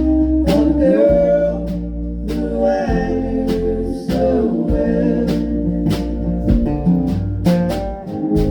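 Live band music: a singer over guitar accompaniment, with sharp percussive strokes keeping time.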